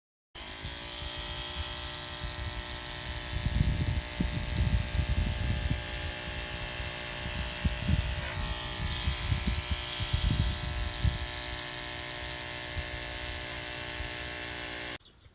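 Electric clippers running with a steady buzzing hum that starts suddenly and cuts off shortly before the end. Low knocks and rumbles come and go from about three to eleven seconds in.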